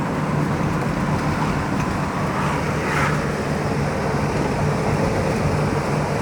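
Steady engine hum and road noise of a moving motor vehicle.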